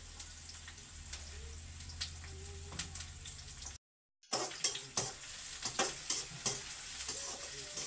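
Chopped onions sizzling as they fry in a metal kadhai over a wood fire, with a spatula scraping and clicking against the pan as they are stirred. The sound cuts out briefly about four seconds in; after that the scrapes come quicker and louder.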